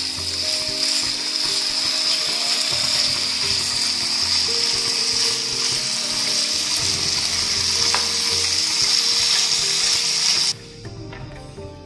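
Boneless chicken pieces sizzling in hot oil in a non-stick pan as they are sautéed: a steady, high hiss that cuts off abruptly near the end, leaving only soft background music.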